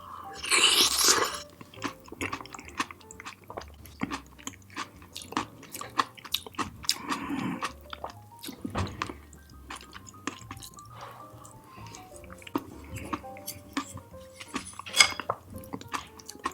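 Close-miked chewing of food, with many small wet mouth clicks and a louder noisy burst about a second in. Soft background music with held notes plays underneath.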